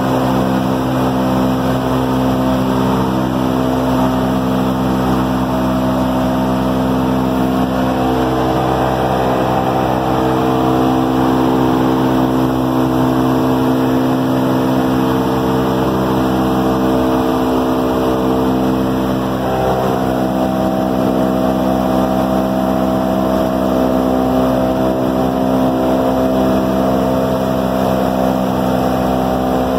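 The four Wright R-1820 Cyclone nine-cylinder radial engines of a B-17G Flying Fortress droning steadily in flight, heard from inside the bomber's Plexiglas nose, with a steady hiss over the drone. The pitch of the engine tones shifts slightly a couple of times.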